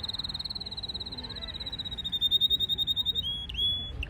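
Red canary singing a fast rolled trill of high, rapidly repeated notes, which drops slightly in pitch and grows louder about halfway through, then changes to a short, lower held note near the end.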